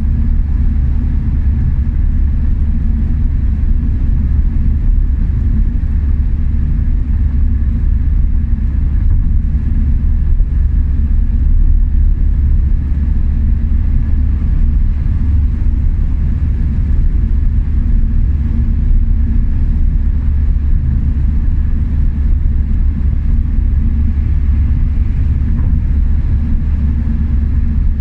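Car driving at motorway speed: a steady low rumble of engine and tyre noise that stays even throughout.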